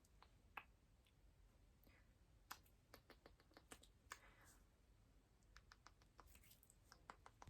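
Faint close-up ASMR mouth sounds: irregular soft clicks and smacks, a quick run of them in the second half, with a couple of short breathy hisses.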